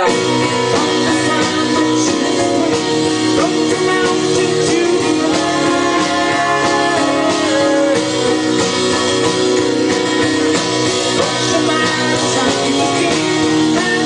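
Live rock band playing: a man singing over acoustic guitar, electric bass and drum kit.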